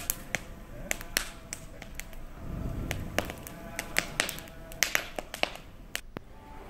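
Bonfire of burning logs and dried cow-dung cakes crackling, with sharp, irregular pops and snaps, several a second.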